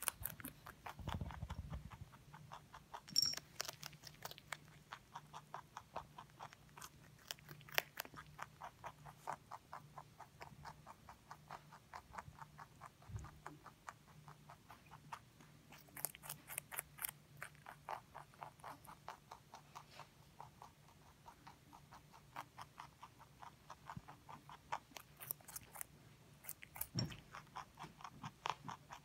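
Pet rabbit crunching raw vegetable sticks such as carrot, in quick, steady chews of a few crisp clicks a second, with a dull low bump about a second in.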